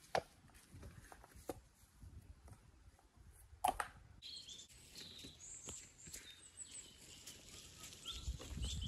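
A few sharp knocks of stone against stone as walling stones are handled, the loudest a little past a third of the way in. From about halfway on, birds chirp steadily.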